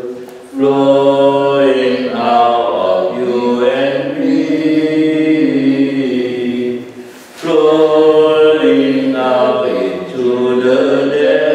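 Voices singing a slow church hymn in long held notes, with brief breaks near the start and about seven seconds in.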